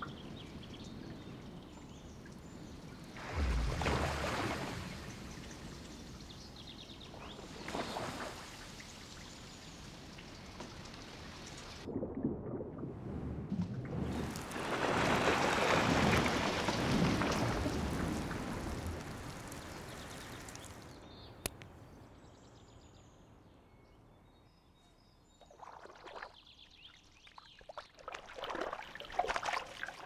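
Water splashing in a shallow forest pool: a couple of single splashes, then a longer, louder splash that fades away, as a kingfisher dives after fish. Near the end comes a run of quick small splashes as a small woodland bird bathes, flicking its wings in the water.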